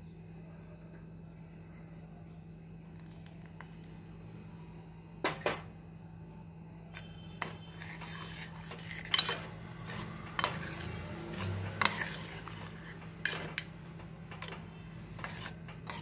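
A steel spoon stirring curd into thick ragi soup in a metal pot, scraping and clinking against the pot's sides. A couple of sharp clinks come about five seconds in, and the clinks and scrapes grow frequent through the second half.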